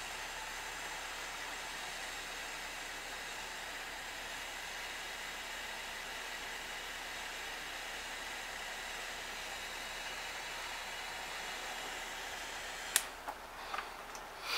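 Aldi Work Zone butane soldering torch burning with a steady gas hiss. Near the end the hiss stops suddenly with a sharp click, followed by a few light knocks.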